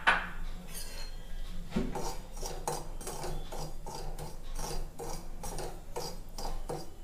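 Metal spoon scraping semolina around the bottom of a kadhai as it is roasted, in repeated rasping strokes about two or three a second from about two seconds in. It begins with a short clatter.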